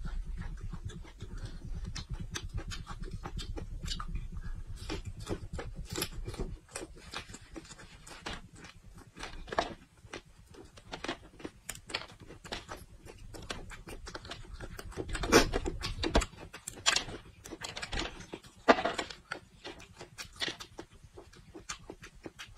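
Close-miked crisp crunching and snapping of fresh raw red chili peppers being chewed and broken apart by hand, with scattered sharp cracks. The two loudest snaps come in the second half, about three seconds apart.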